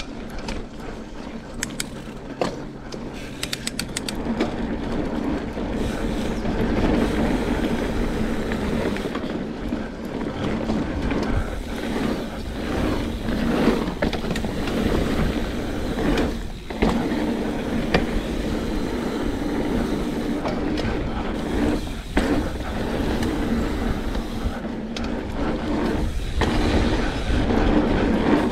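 Mountain bike ridden over a dirt singletrack: a steady rumble of tyres rolling on the packed trail, with the bike rattling and ticking over bumps and a run of quick ticks about two seconds in.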